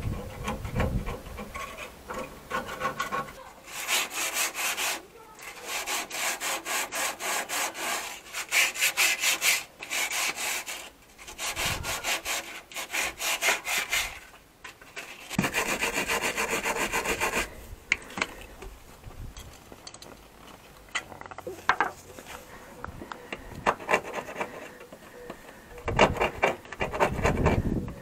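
Hand scrubbing and scraping on the rusty underbody of a Mazda MX-5 NBFL, to clean off dirt and rust before anti-rust treatment. It comes as quick back-and-forth strokes in bursts of one to three seconds, with short pauses between.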